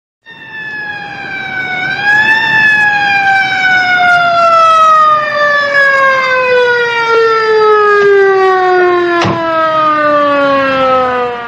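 Police siren sounding one long, slowly falling wail that grows louder over the first two seconds, rises briefly about two seconds in, then drops steadily in pitch.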